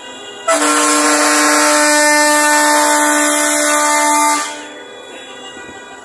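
Bus horn sounding one long, steady blast of about four seconds, starting suddenly about half a second in and cutting off.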